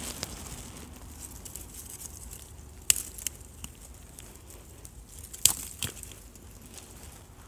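Dry cotton plants and brush crackling and rustling, with two sharp snaps about three and five and a half seconds in and a few smaller ones after each.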